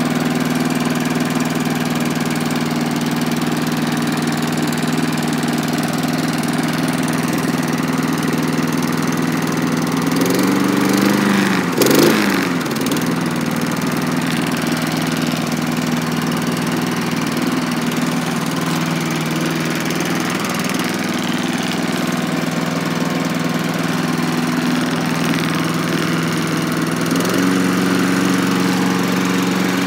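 Castle Garden rotary lawnmower's petrol engine running steadily just after being pull-started. About ten seconds in its note wavers, with a brief loud burst near twelve seconds, and near the end the note steps up slightly.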